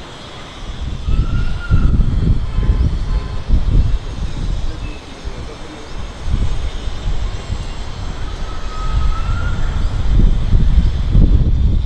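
Loud, uneven low rumble of outdoor background noise, swelling and fading, with two faint whistled bird notes that rise and fall, one near the start and one about three-quarters of the way through.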